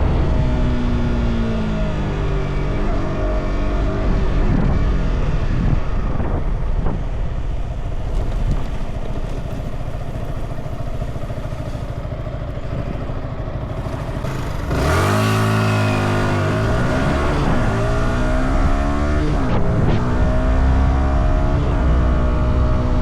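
Stock Yamaha R125's single-cylinder four-stroke engine under way. The revs fall off in the first seconds and it runs quieter for a while. About fifteen seconds in it gets louder and revs up again several times, dropping between gear changes, before settling near the end.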